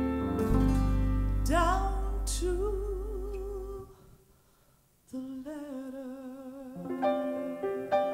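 A woman sings a slow show-tune ballad line with wide vibrato, live, backed by piano and low held bass notes. The music drops almost to silence for about a second just before the middle, then she comes back in over piano chords.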